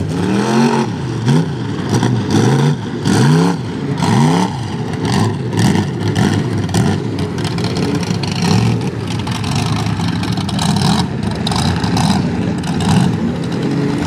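Big-block Ford V8 in a lifted OBS Ford mud truck revving hard in repeated bursts. Its pitch climbs and drops again and again over the first few seconds, then it runs on more steadily and roughly.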